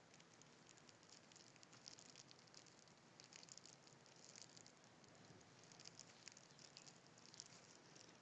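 Near silence, with faint, irregular small ticks and crackles of hands working at close quarters.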